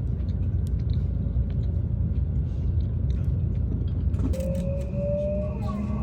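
Steady low rumble of a vehicle in motion, with faint scattered ticks. Background music comes in about four seconds in.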